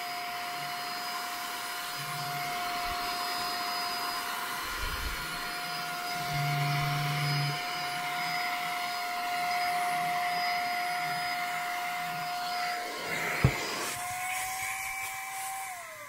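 Brigii M1 cordless handheld vacuum running steadily with a high motor whine and rushing air as its narrow nozzle sucks crumbs and dust from between the keys of a laptop keyboard. One sharp tap comes near the end, the loudest moment.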